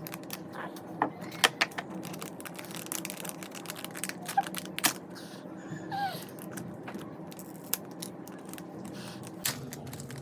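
Scattered clicks, taps and crinkles of the Jolo chip's packaging being handled and opened, over a steady low hum.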